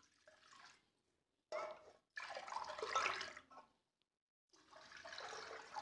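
Water poured from a glass into a metal kadhai, splashing faintly in short spells, the last one near the end.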